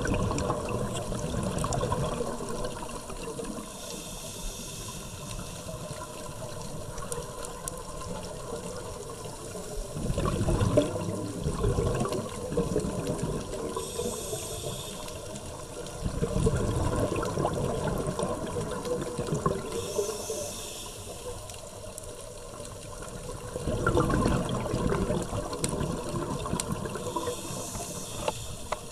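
Scuba diver breathing underwater through a regulator: a hissing inhale every several seconds, each followed by a louder, rumbling burst of exhaled bubbles.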